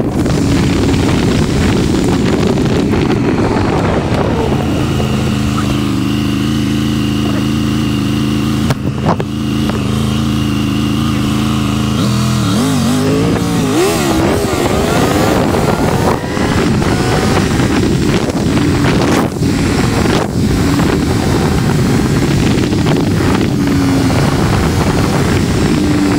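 Triumph Tiger 1200 Rally Pro's three-cylinder engine running under way, with wind rushing over the microphone. The engine note holds steady for several seconds, then rises and falls around halfway through as the throttle changes.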